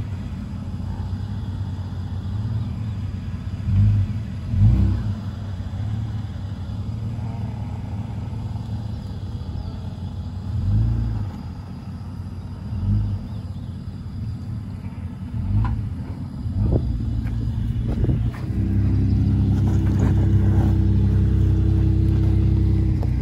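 SUV engine running at low revs, with occasional low thumps. About eighteen seconds in it settles into a louder, steady note as it pulls under load on a recovery strap, towing a disabled pickup.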